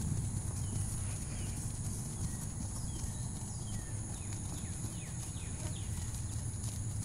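Horse trotting on grass, its hoofbeats dull, muffled thuds.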